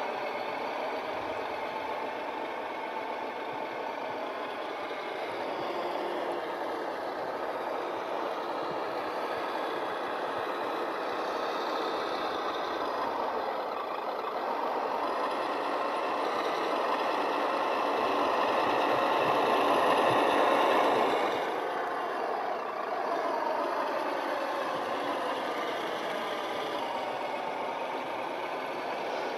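Radio-controlled Humvee-style 4x4 model driving on asphalt, its motor and drivetrain running steadily. It gets louder for a few seconds past the middle, then drops off suddenly, followed by a short falling whine.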